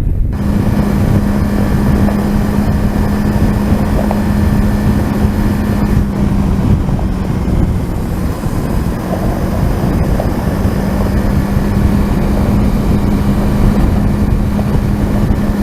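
Kawasaki Versys 300's parallel-twin engine running at steady cruising speed under heavy wind rush on the microphone; the engine note eases briefly about halfway through.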